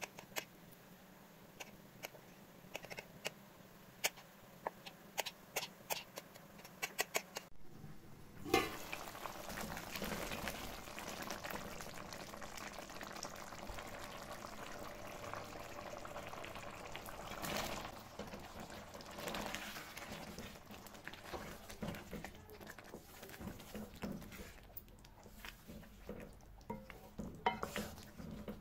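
A knife cuts through a steamed egg slab, a string of sharp clicks against the surface beneath. After about eight seconds this gives way to a tomato-and-pea masala bubbling in a metal pan, with a wooden spoon stirring and knocking against the pan near the end.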